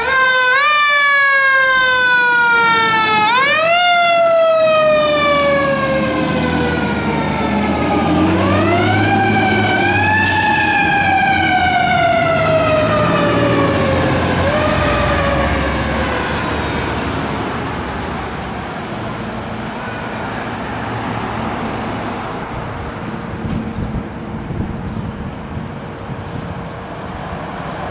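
Fire engine siren wailing on a 1995 KME pumper responding to a call. The pitch is pushed up in quick rises, winds up slowly about eight to ten seconds in, then slides down over several seconds and fades out by about halfway. After that there is only engine and street traffic noise.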